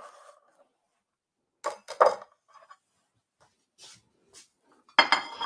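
Kitchen utensils knocking and clinking: two sharp knocks about two seconds in, a few faint clicks, then a short clatter near the end.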